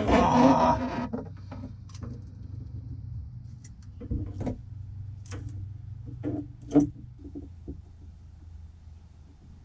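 A long metal grabber tool scraping and clicking inside a boat's fuel tank as it fishes for the stuck fuel pickup tube. There is a longer scraping rustle in the first second, then scattered light knocks and clicks, over a low steady hum.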